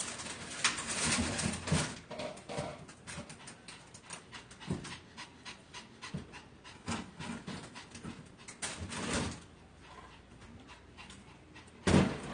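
A small Pomeranian dog panting in quick, noisy breaths, louder at the start and again about nine seconds in.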